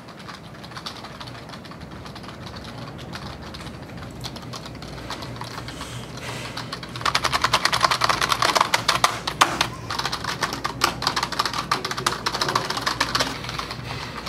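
Computer keyboard typed on fast and hard, a dense clatter of keystrokes that is light at first and turns much louder and heavier from about halfway through, easing near the end.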